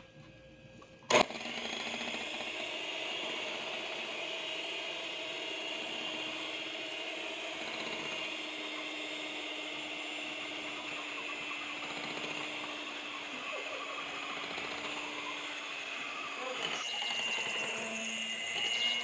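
Electric hand mixer running steadily, its beaters whipping flour into cake batter, starting with a sharp click about a second in. Near the end its whine shifts higher and grows a little louder.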